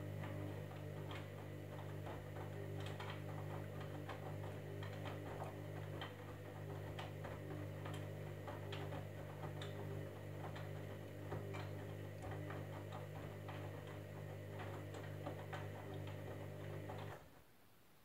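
Candy Grand'O Vita washing machine turning its drum during the wash: a steady motor hum with many irregular light clicks and taps from the tumbling load, cutting off suddenly about 17 seconds in as the drum stops.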